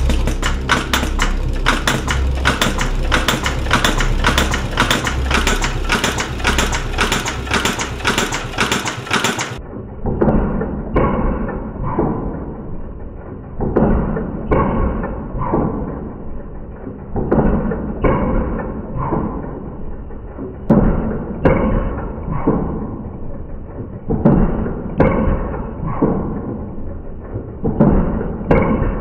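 Heavy-duty industrial leather sewing machine stitching through leather: a steady mechanical clatter of about three stitches a second. About ten seconds in it changes to slower, separate stitch strokes, roughly one a second.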